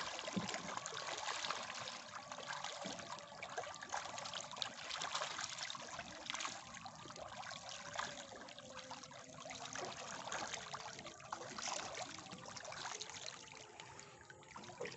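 A dense shoal of tilapia churning at the surface of a floating net cage: a steady crackle of many small splashes and trickling water, thinning a little near the end.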